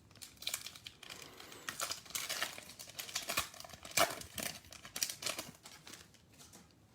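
Trading cards and thin plastic card sleeves being handled: irregular light crinkling and small clicks as cards are slid and shuffled, with one sharper click about four seconds in.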